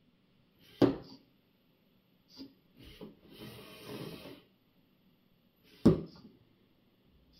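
LEGO robot arm in motion: its motors and plastic gear trains whir for a second or so in the middle as the arm swings round, between sharp plastic knocks of the mechanism, the loudest about a second in and near six seconds.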